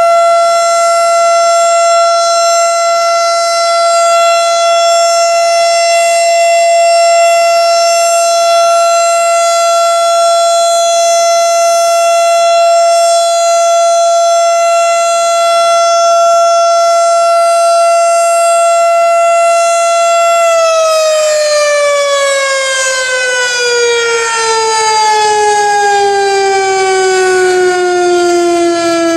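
Federal Signal STH-10 single-tone, 12-port outdoor warning siren sounding its steady alert tone. About 20 seconds in it starts to wind down, its pitch falling steadily as the rotor slows at the end of the alert.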